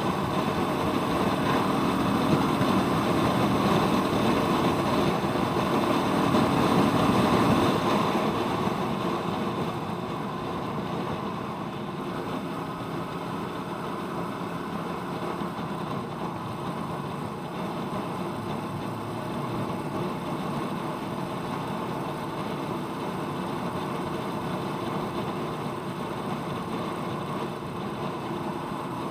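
Royal Enfield Meteor 350's single-cylinder engine running on the move, under steady wind rush over the microphone. It is louder for the first eight seconds or so, then settles a little lower.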